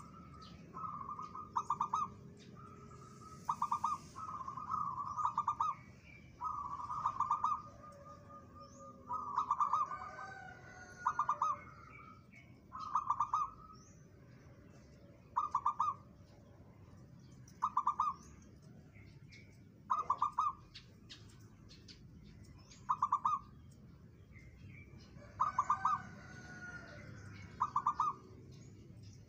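Zebra dove (perkutut) cooing over and over, each coo a quick stuttering trill of notes. The coos come in longer runs during the first ten seconds or so, then settle to one short phrase about every two seconds.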